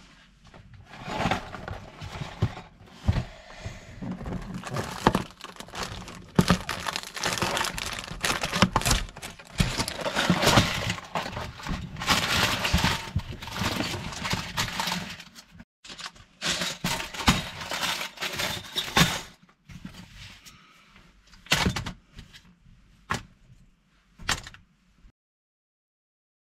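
Cardboard LEGO set box being torn open and its plastic parts bags handled, a long run of crackling, tearing and crinkling with sharp clicks. Near the end this thins to a few separate taps.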